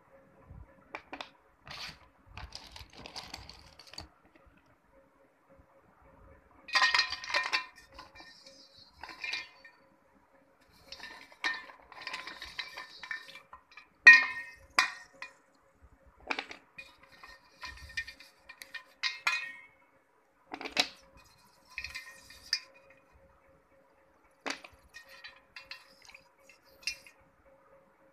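Wet slate pencils and slate bars clinking and knocking against each other and against a metal pan as they are handled in water, in irregular clusters of short clicks, the loudest about halfway through.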